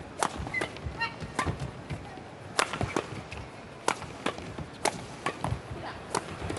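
Badminton rally: rackets hitting a feather shuttlecock back and forth, a sharp crack about every half second to second, with a few short squeaks of shoes on the court.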